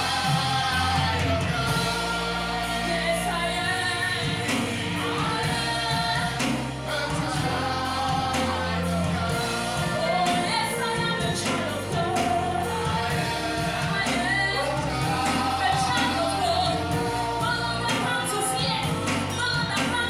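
Gospel worship song: voices singing over band accompaniment with a bass line that holds each note for a second or two.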